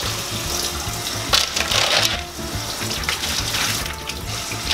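Kitchen faucet running steadily into the sink, with a few sharp clicks of mussel shells knocking together as they are handled in the water, about a second and a half in.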